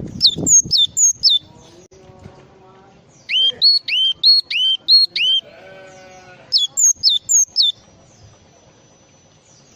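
Cinereous tit (gelatik batu) singing: three loud bursts of high, clear whistled notes, each a quick run of repeated short notes. The middle burst alternates a rising note with a higher one.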